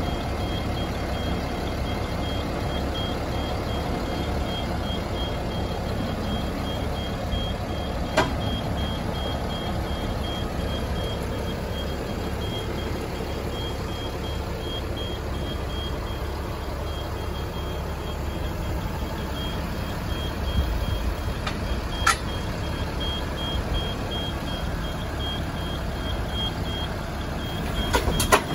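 2005 DAF LF 55.220 truck's diesel engine running steadily, powering its Terex Atlas knuckle-boom crane as the crane is unfolded and raised, with a high electronic warning beep pulsing rapidly throughout. A few sharp clicks are heard along the way.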